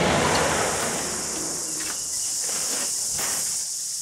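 The echo of a .375 CheyTac rifle shot dies away over the first second. Under it, insects chirr steadily and high, and a few faint knocks come later.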